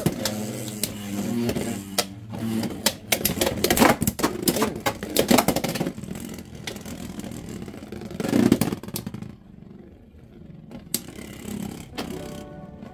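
Two Beyblade X spinning tops clattering in a plastic stadium: rapid clacks and knocks as they hit each other and the stadium wall. The clatter is dense for the first six seconds, then thins to occasional hits.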